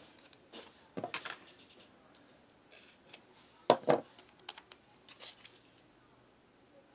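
Hands handling a small foil spread packet and a utensil on a wooden table: scattered sharp clicks and taps, the loudest a quick pair about four seconds in.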